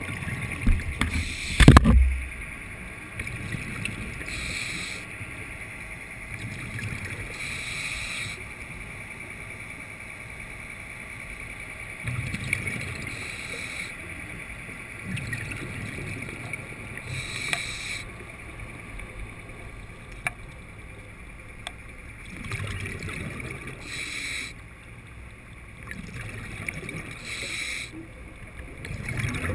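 Scuba diver's breathing heard underwater through the camera housing: a breathy hiss every few seconds, and lower bubbling rumbles of exhaled air. A loud knock sounds about two seconds in.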